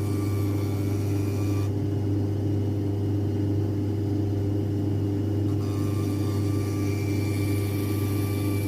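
Steady low machine hum, with a fainter high whine that drops out about two seconds in and comes back near the six-second mark.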